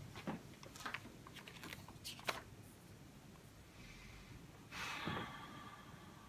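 A paper notebook handled by hand: a series of small clicks and taps as it is opened, then a page turned over with a brief papery swish about five seconds in.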